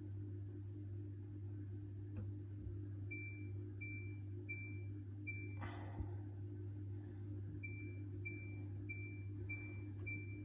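Hoover H-Wash 600 washing machine's control panel beeping as its programs and options are stepped through. There is a run of four short high beeps about half a second apart, a brief rustle, then five more, over a steady low hum.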